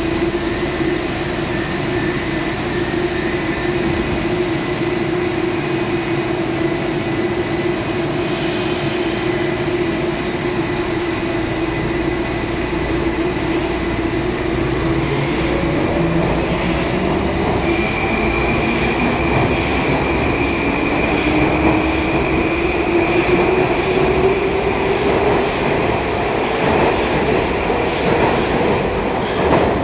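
Metro train of the 81-725/726/727 Baltiets type standing at the platform with a steady electrical hum; a brief noise about eight seconds in marks its doors closing. It then pulls away, its traction drive's whine rising steadily in pitch as it accelerates, with wheel noise growing louder near the end.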